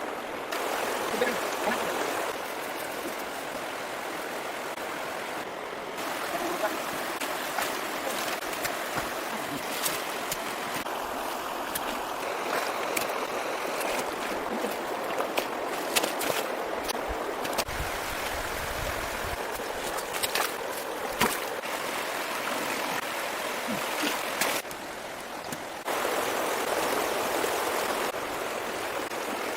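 Water rushing and splashing steadily, with scattered sharp splashes or knocks. The sound changes abruptly a few times, as between shots.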